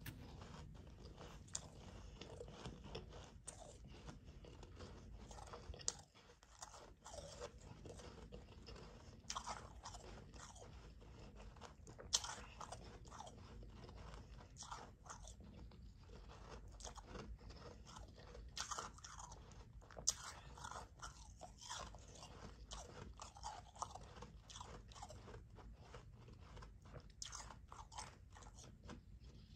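Soft, powdery ice being bitten and chewed, with an irregular run of crisp crunches and a couple of sharper clicks.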